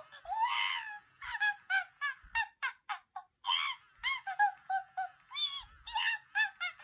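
Animatronic plush monkey toy's electronic voice chattering: a quick run of short, squeaky monkey calls, about three a second, with one longer call near the start.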